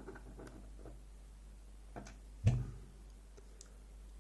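A few small clicks and taps as tiny lock pins are handled and set down on a work surface, with one louder knock about two and a half seconds in.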